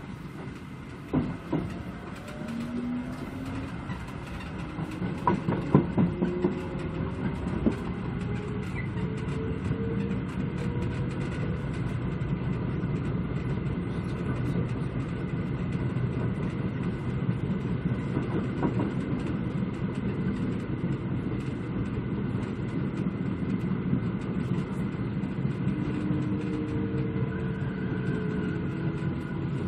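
Seoul Metro Line 1 electric train accelerating, its Mitsubishi GTO VVVF inverter and traction motors giving off whining tones that climb in pitch, then settle into steady running noise. Wheels clack over rail joints several times in the first few seconds, and the climbing whine starts again near the end.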